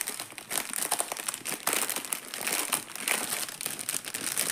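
Clear plastic bags crinkling and crackling as they are handled and pulled open. The bags are small zip bags of diamond painting drills and their outer packet.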